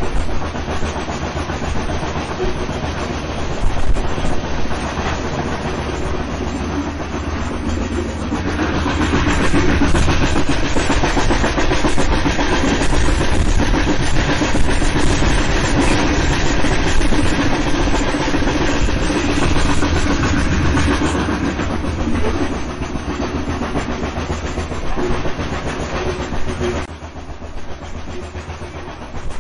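Steam train running along the track: a continuous rumble that grows louder about a third of the way in and eases off near the end.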